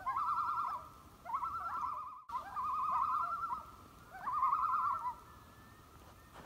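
A bird's wavering, trilled call, each under a second long, repeated four times over a faint steady tone, with a split-second drop-out about two seconds in.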